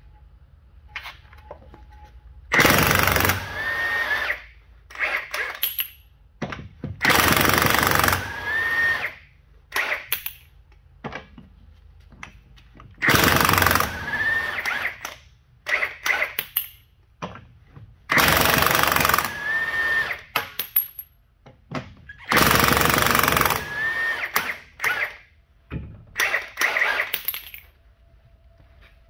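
Milwaukee M18 FUEL 1-inch D-handle high-torque impact wrench hammering lug nuts off a truck wheel, in about five loud bursts of one to two seconds plus a few shorter ones. Each main burst ends in a short rising whine. Small clicks and knocks come between the bursts.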